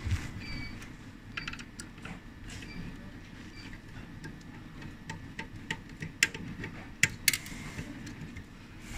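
Irregular small clicks and light rattles of cables and plastic connectors being handled and pulled inside a metal controller box during disassembly, with a few sharper clicks about two-thirds of the way through.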